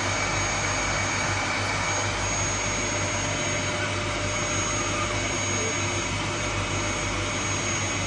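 Canister vacuum cleaner running steadily: an even motor-and-airflow noise with a constant high whine over it.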